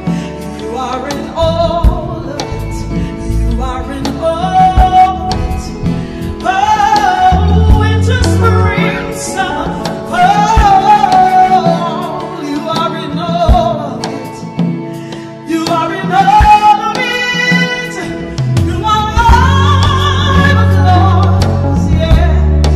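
Gospel song: a solo singer's voice with sliding, drawn-out notes over band backing, with a heavy bass that drops in and out.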